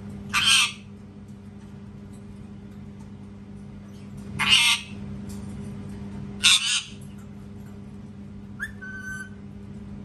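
Indian ringneck parakeet screaming: three short, harsh screeches spaced a few seconds apart, then a brief faint whistle near the end.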